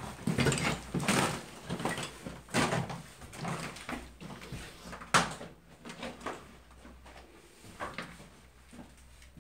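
Footsteps on a floor littered with broken plaster and rubble: irregular crunches and knocks, the loudest a sharp crack about five seconds in.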